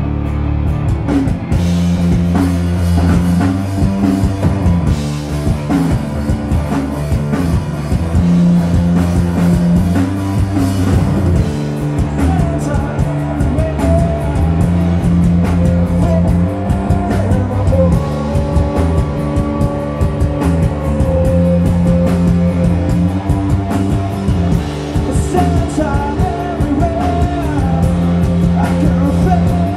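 Live rock music from a trio: electric guitar, bass guitar and drum kit playing together, with a sung vocal line over them.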